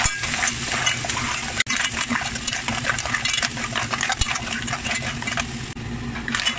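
Clams in their shells being stirred with a spatula in a granite-coated pot: shells clicking and clattering against each other and the pan while the oil and sauce sizzle.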